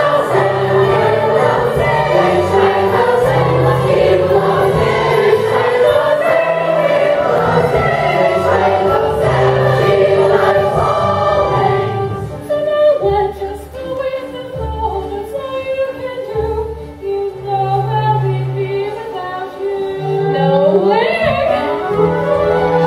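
A large cast chorus of children and adults singing an opera finale together, with steady low accompanying notes under the voices.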